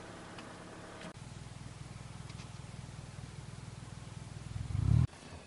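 A Plymouth Laser AWD's turbocharged four-cylinder engine, running steadily at first. After a cut about a second in, it runs with a low, pulsing rumble that swells to a loud peak near the end and then cuts off abruptly.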